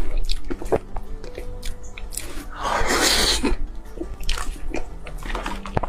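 Close-miked chewing and wet mouth clicks of someone eating a rich chocolate dessert, with a longer rushing noise about three seconds in, over quiet background music.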